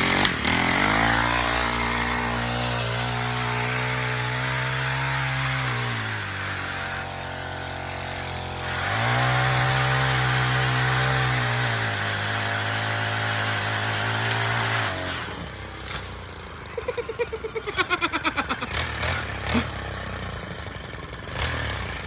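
Chainsaw revved up to high speed, easing off around six seconds in, revving again about three seconds later, then dropping away and stopping around fifteen seconds in. A quick run of clicks follows near the end.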